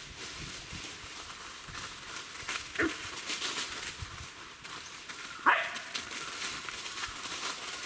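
Dogs playing and running through dry fallen leaves, their paws rustling and scuffling the leaves, with two short barks or yips: one about three seconds in and a louder one about five and a half seconds in.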